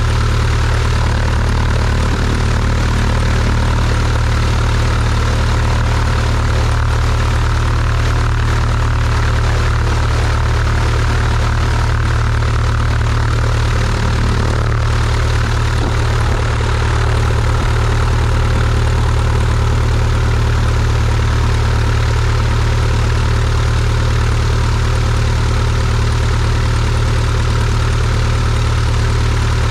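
Cessna 172's piston engine and propeller running steadily at low taxi power, a constant drone with a strong low hum.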